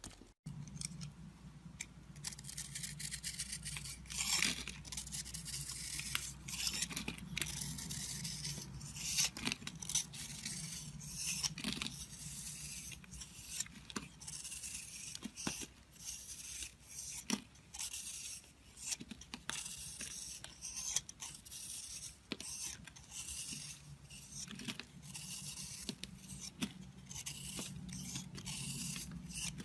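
A knife carving a bar of soap: crisp scraping and cutting strokes come at an irregular pace, some short and sharp, others longer shaves.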